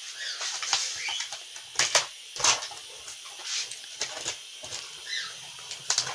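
Hands working at a cardboard printer box to open it: scattered scrapes, taps and rustles of cardboard and packing, in short irregular bursts.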